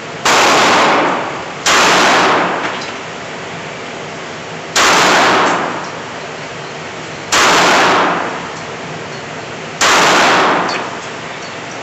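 Five shots from a Colt Government .380 ACP pistol in an indoor range, spaced one to three seconds apart, each with a short echoing tail.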